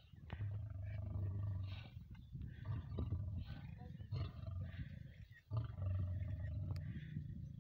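Lion giving two long, low calls, the first about half a second in and the second about five and a half seconds in.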